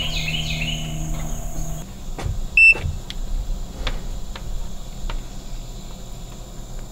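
A digital clamp multimeter gives a single short beep about two and a half seconds in, among light clicks from test probes and wires being handled. A steady low hum with birds chirping runs through the first second and a half.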